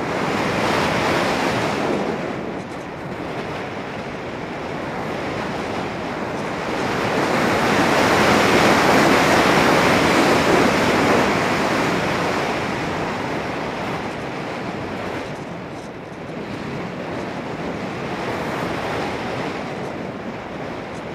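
Airflow rushing over the onboard camera's microphone on an RC glider in flight, a steady roar of wind noise that swells to its loudest about halfway through and eases off again.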